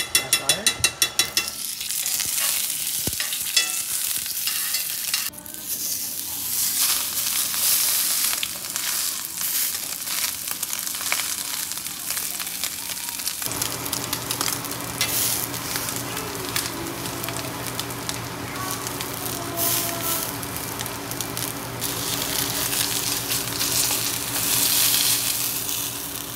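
Ribeye steak frying in beef tallow in a hot pan: a steady sizzle. A rapid run of loud clicks in the first second, and a low steady hum comes in about halfway through.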